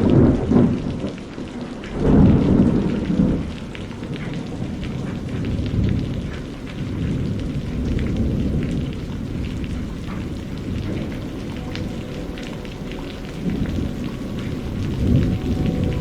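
Steady rain with deep rolling thunder: rumbles at the very start and about two seconds in, and another swell near the end.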